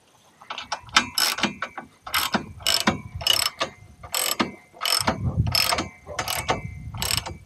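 A 1/2-inch drive hand ratchet clicking in short bursts, about two a second, as its handle is swung back and forth to tighten mounting bolts.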